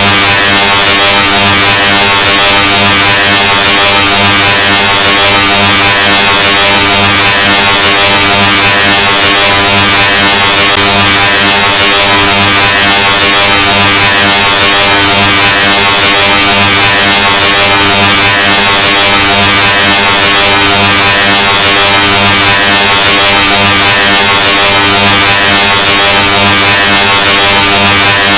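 "Loudness 2.0" ear-rape sound effect: a steady, harsh, heavily distorted buzz at near maximum volume, with a low pitched hum under a wash of hiss, never changing.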